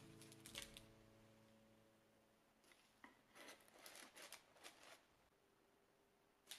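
Soft scrapes of a metal pie server under slices of blueberry pie on a baking tray, with parchment paper rustling as the pieces are moved. A brief stroke comes near the start, then a cluster of short scrapes and rustles from about two and a half to five seconds in.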